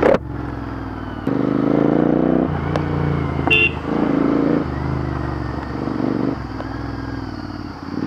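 Royal Enfield Interceptor 650 parallel-twin engine through a Red Rooster aftermarket slip-on exhaust, ridden at low speed. The throttle is opened and closed in steps, so the exhaust note swells and drops several times. A sharp crack comes right at the start.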